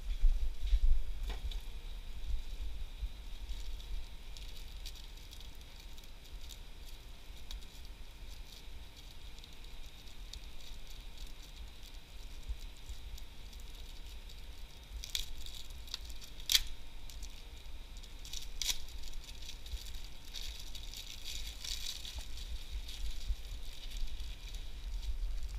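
Snack packages and loose items being handled: rustling, crinkling and rattling, with a few sharp clicks about 15 to 19 seconds in and a longer spell of rustling soon after.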